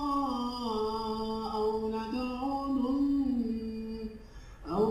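A man's melodic Quran recitation (tajweed), the voice drawing out long held notes that shift slowly up and down in pitch. The voice breaks off about four seconds in, and a new phrase begins just before the end.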